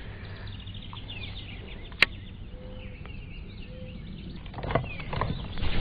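Cast with a baitcasting rod and reel: a faint falling whirr as line spins off the spool, then one sharp click about two seconds in as the reel engages, over a low steady rumble of wind on the microphone.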